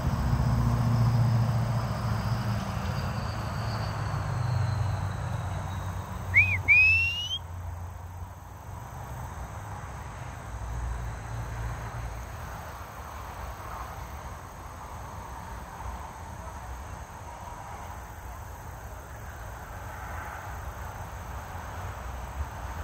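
Outdoor night ambience: a low vehicle rumble fades away over the first few seconds under a steady insect drone. About six seconds in come two short, quick rising whistles, the loudest sounds here.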